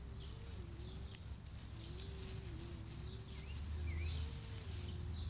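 Outdoor ambience: a few short bird chirps over a rustling hiss from grass close to the microphone, with a faint tone wavering up and down in pitch.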